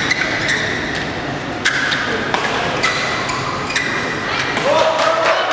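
Badminton rally: rackets hit the shuttlecock several times in sharp clicks, while the players' shoes squeak in short high tones on the court floor.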